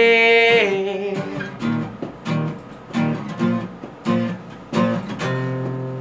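Acoustic guitar strummed in a steady rhythm, chords ringing between strokes, after a held sung note fades out in the first second.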